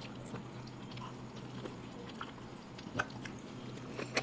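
Faint mouth sounds of two people chewing and sucking on strips of rolled rainbow candy, with soft scattered clicks and a sharper click about three seconds in and another near the end.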